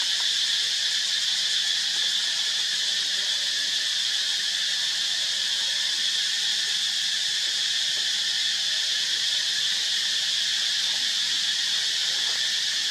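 A steady, high-pitched insect chorus drones without a break.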